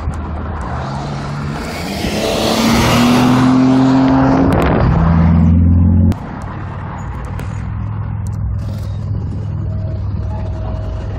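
Audi B5 S4's twin-turbo V6 with a full Borla exhaust accelerating, its note climbing in pitch for several seconds. It drops suddenly about six seconds in to a lower, steady drone with road noise.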